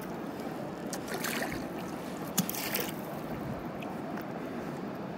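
Kayak on a river: a steady rush of moving water, with paddle splashes about a second in and again at about two and a half seconds, and one sharp knock just before the second splash.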